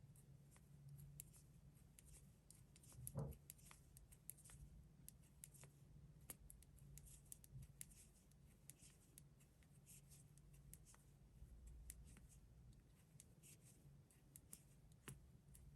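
Faint, irregular clicking of knitting needles, with a steady low hum underneath.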